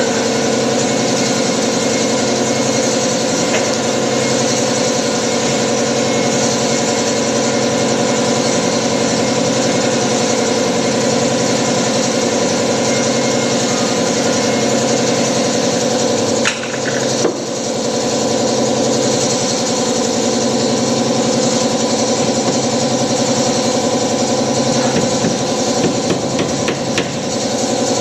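A motor runs steadily with an engine-like drone and a fine, even pulse, while a few sharp knocks from carpentry work on the wooden cabinets sound about three seconds in, around the middle and near the end.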